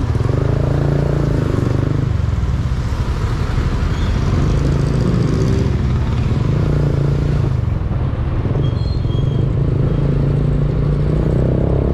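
Motorcycle engine running steadily while riding slowly through traffic, with road and wind noise.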